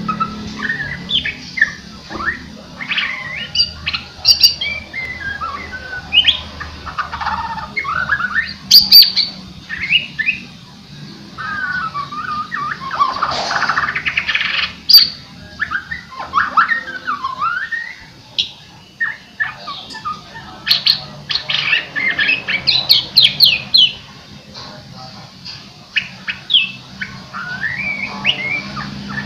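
White-rumped shama (murai batu) singing vigorously: a fast, varied run of whistles, rising and falling glides and sharp clicking notes, broken by a few short pauses.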